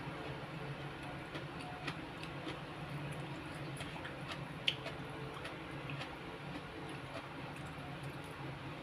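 Quiet eating sounds: a person chewing, with scattered soft mouth clicks and a sharper tick about two seconds in and again near five seconds. A steady low hum runs underneath.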